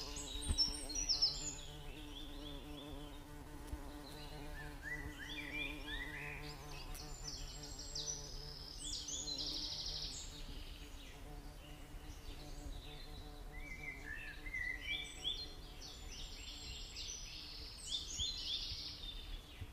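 Faint high chirps in short rising runs, coming in three clusters, over a steady low hum.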